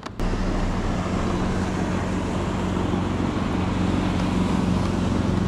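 Steady low motor hum with a rushing noise over it, starting suddenly just after the start.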